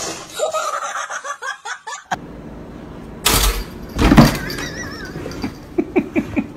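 People laughing in short repeated bursts, with two loud thumps or knocks about three and four seconds in.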